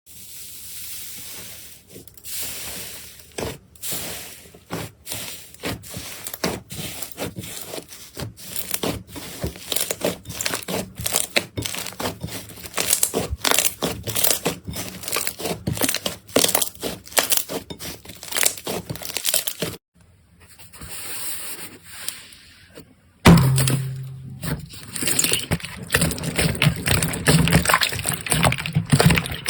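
Hands squishing and poking slime, giving an irregular run of sharp pops and clicks. It changes suddenly about 23 seconds in to a denser, continuous crackling squish of another slime.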